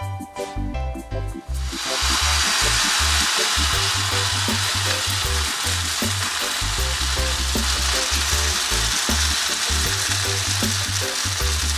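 Grated potato batter frying in hot olive oil in a frying pan: a loud, steady sizzle that starts suddenly about two seconds in as the batter goes into the oil. Background music with a steady bass beat runs underneath.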